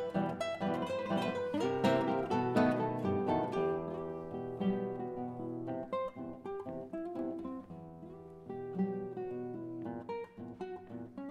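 Four classical guitars playing a tango together, plucked notes and chords. The playing is dense and louder for the first few seconds, then turns quieter and sparser with more held notes.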